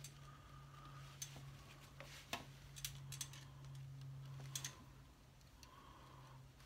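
A handful of light, sharp metallic clicks and taps, spread irregularly, as a screwdriver and a small wire clamp are worked against the alloy timing-side engine case while the points wires are secured. A steady low hum runs underneath.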